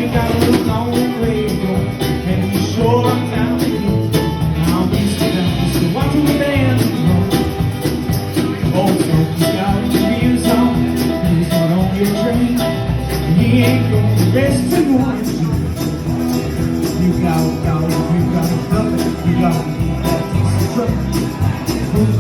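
Live country band playing, guitar to the fore with bent notes over the rhythm.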